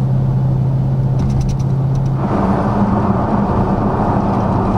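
Dodge Charger Scat Pack's 392 (6.4-litre) HEMI V8 running under way with a steady low drone and road noise. A little over two seconds in, the note steps up to a higher pitch and sounds fuller.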